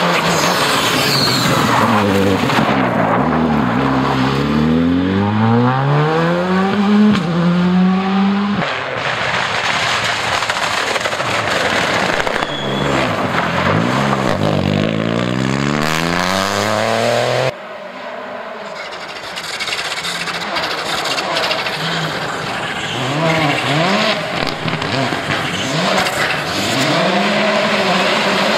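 Rally cars driven hard one after another: a Škoda Fabia, then a Peugeot 208, then a Volkswagen Polo. Each engine revs up through the gears and drops back as the driver lifts and brakes, so the pitch climbs and falls again and again. The sound changes suddenly about a third and two thirds of the way in.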